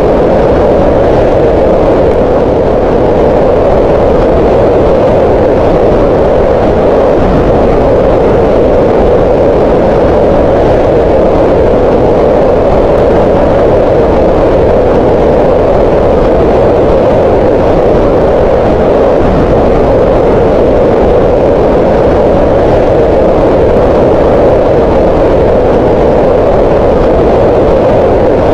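Green noise: a steady, unbroken hiss with its energy centred around 500 Hz in the middle of the hearing range, with weaker lows and highs.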